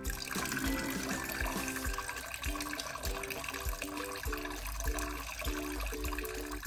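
Antifreeze pouring out of a detached engine coolant tube and splashing steadily into a bucket below, over background music with a beat.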